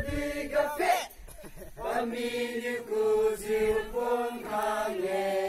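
A group of male voices chanting a song together in unison on long held notes, breaking off about a second in and then resuming.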